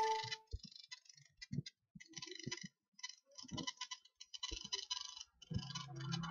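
Irregular short runs of clicking, as from someone working a computer while operating the software. A low steady hum starts near the end.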